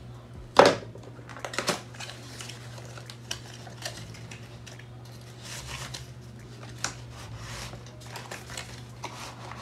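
Hands opening a cardboard product box and pulling out its inner tray: paper and card rustling and sliding, with scattered taps and clicks, the loudest a sharp knock about half a second in. A steady low hum runs underneath.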